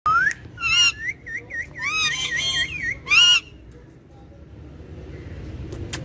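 Ring-necked parakeets whistling and calling: a rising whistle, then a quick run of short dipping whistles, broken by a few louder, fuller calls, all within the first three and a half seconds.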